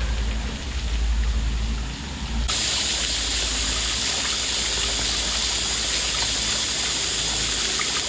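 Small waterfall spilling off a sandstone cliff into a rock pool: a steady rushing splash. For about the first two and a half seconds it is fainter under a low rumble, then it comes in suddenly louder and clearer and stays even.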